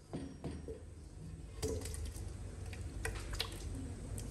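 Boiled eggs in thick balado chili sauce sliding and plopping out of a tilted metal wok into a stainless steel bowl: soft wet squelches with scattered light clicks.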